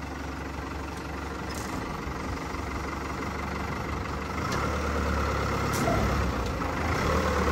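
Farm tractor engine running steadily, its revs and load rising from about four seconds in, with a few faint clicks over it.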